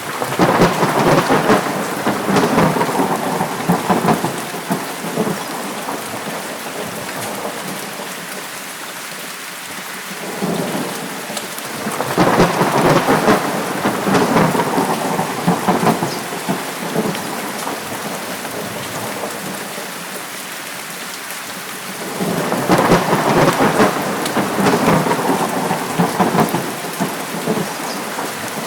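Steady heavy rain with three long rolls of thunder: one at the very start, one about halfway, and one about three quarters of the way through, each rumbling for several seconds before fading back into the rain.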